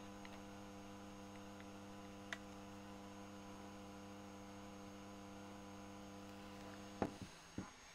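Faint, steady electrical hum with a ladder of overtones, with a single sharp click a little after two seconds. Near the end the hum cuts off and a few clicks follow.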